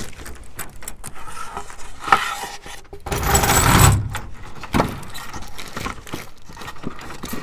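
Keys jangling and clicking in the lock of a hard-shell rooftop cargo box. About three seconds in comes a louder rush of rattling and scraping as the lid is lifted open, followed by further knocks and clicks as it is propped.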